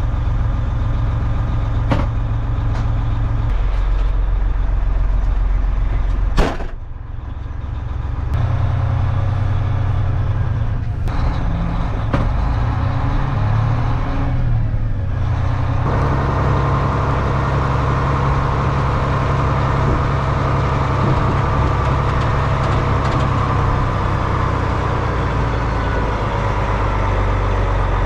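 Semi truck's diesel engine running, heard from inside the cab, with its low hum changing several times and a sharp click about six and a half seconds in.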